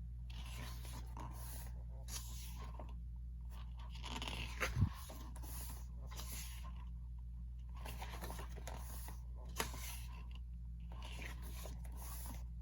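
Photo-book pages being turned and handled: a series of soft papery rustles and slides, with a light knock about five seconds in and a sharp click near ten seconds.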